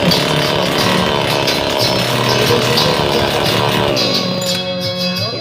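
Grass cutter engine running, with a song playing along with it; the engine noise drops away about four seconds in.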